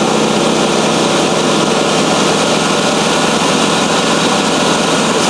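Portable bandsaw mill's small petrol engine running steadily at an even, loud level.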